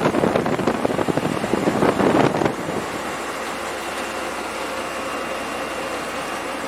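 A steady mechanical hum, with a burst of rattling and knocking during the first two and a half seconds that then stops.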